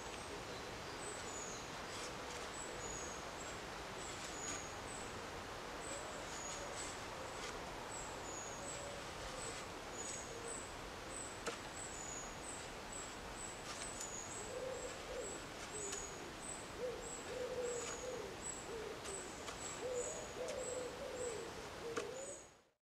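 Woodland birdsong: thin high-pitched calls repeat about twice a second throughout, and a low cooing bird call comes in and out, mostly in the last third. A few faint clicks come from a knife whittling a wooden stick. The sound cuts off abruptly near the end.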